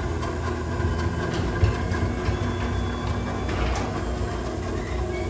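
Chamberlain garage door opener running: a steady motor hum and drive rumble as the sectional door travels along its tracks, set off by the newly reprogrammed remote.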